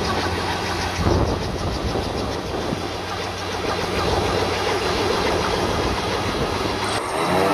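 Engine of a homemade helicopter built from scrap car parts running, with its rotor turning, making a loud, steady, rapidly repeating mechanical clatter. Near the end a steady pitched hum comes in.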